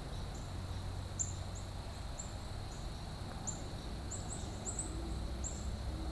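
A small songbird giving short, sharp, high chip notes at uneven intervals, about two a second, over a faint steady high insect drone and low outdoor rumble.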